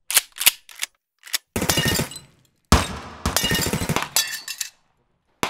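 Gunshot sound effects: a few single shots, then two long bursts of rapid automatic fire, with glass starting to shatter near the end.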